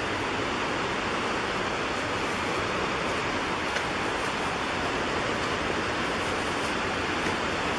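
Steady rush of flowing creek water, an even hiss with no breaks.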